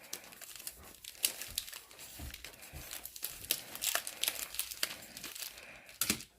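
Crinkling plastic packaging of a Donruss basketball card box and its retail packs being handled, in irregular crackles with a little tearing.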